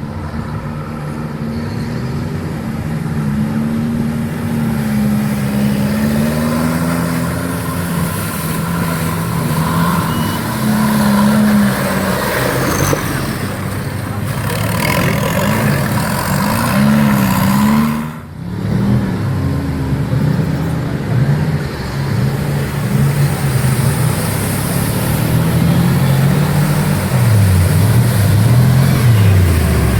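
Off-road 4x4 engines revving, the engine pitch rising and falling repeatedly, with a brief drop about eighteen seconds in.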